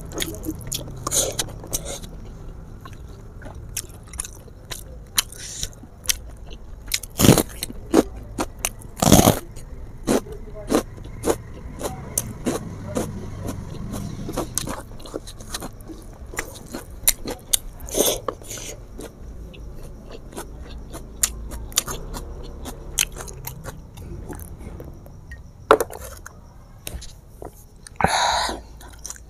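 A person eating river snail curry with rice, close to the microphone: chewing, with many short sharp clicks and a few much louder ones scattered through.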